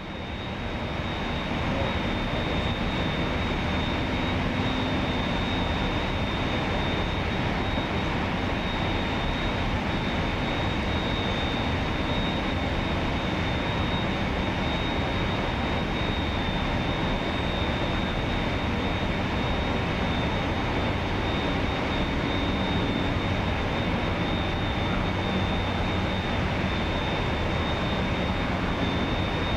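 Steady rushing noise with a constant high-pitched whine running through it, aboard a Ticonderoga-class guided-missile cruiser under way. It fades in at the very start, then holds level.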